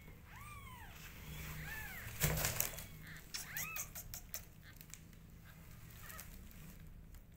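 Newborn kittens mewing: several short, high-pitched mews that rise and fall, with a brief loud rustling noise about two seconds in and scattered scratchy handling sounds after it.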